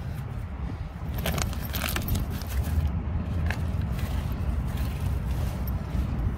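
Strong wind buffeting the microphone as a steady low rumble, with a few brief rustles and clicks from the greenhouse's reinforced plastic cover being handled.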